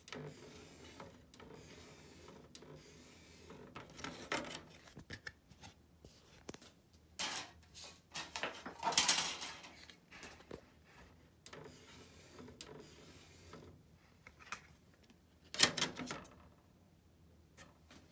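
Samsung HT-X50 DVD changer's disc carousel turning on its motor: a low mechanical whirr with intermittent clicks and clatters, the loudest about nine seconds in and another near sixteen seconds in.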